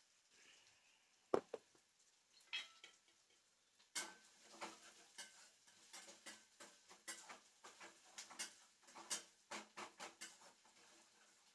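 Hot cooking oil crackling and spitting in a pan, with irregular pops several a second from about four seconds in. A single sharp knock comes about a second in.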